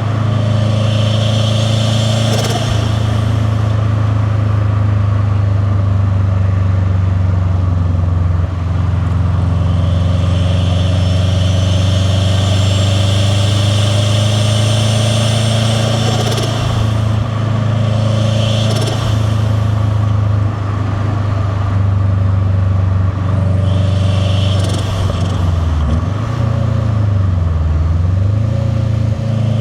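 Turbocharged 2.0-litre flat-four boxer engine of a 2001 Subaru Impreza WRX STi with a VF48 turbo, catless downpipe and titanium cat-back exhaust, driving with a steady rumble. Three times the turbo's rushing hiss rises over the rumble, each ending in a short sharp air burst. Near the end the engine note drops and climbs back up.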